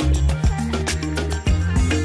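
Background music with a steady beat, a bass line and a pitched melody.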